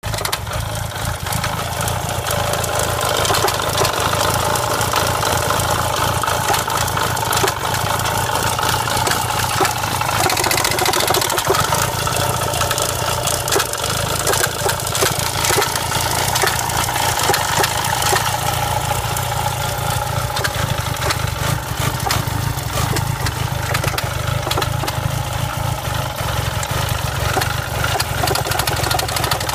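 Renault Clio 172 Cup's four-cylinder engine running steadily at idle with many small clicks and knocks through it: the misfire and rattle its owner is showing.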